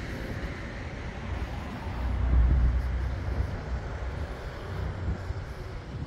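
Low outdoor rumble without a clear pitch, swelling louder about two to three seconds in.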